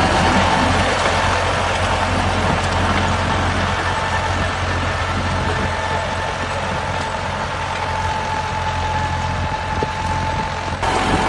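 A steady engine-like drone with a low hum and a faint high tone held over it; it changes abruptly near the end.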